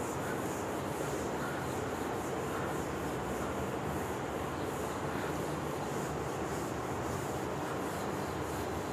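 A whiteboard duster rubbing across a whiteboard as writing is wiped off, faint under a steady background hiss and low hum.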